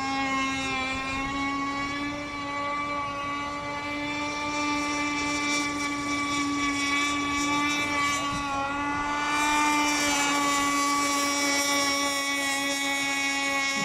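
Radio-controlled racing boat running at speed, its motor a steady, even drone with only slight wavering in pitch.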